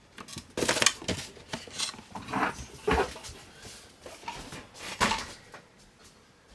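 Hands handling computer hardware and its packaging: an irregular run of clicks, taps and rustles, the loudest about one second, three seconds and five seconds in.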